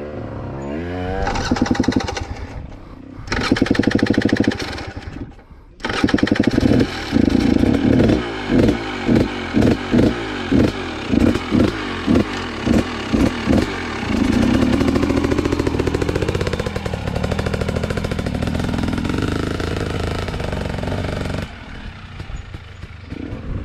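Enduro dirt bike engine revving in bursts: a run of about ten quick throttle blips, roughly one and a half a second, then a longer rising rev and steady running that drops away near the end.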